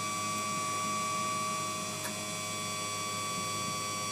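Auto Crane's telescoping boom extending under power, its drive motor giving a steady hum with a constant high tone.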